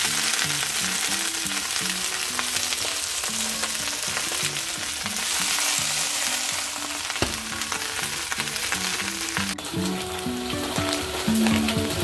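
Kale and baby bok choy sizzling as they fry in hot oil in a wok, a steady dense hiss. It eases a little about three quarters of the way through, with soft background music underneath.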